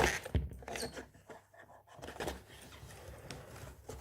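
A box and its packaging being handled as an accessory holder is taken out: scattered faint clicks and rustles, quieter for a moment about a second in.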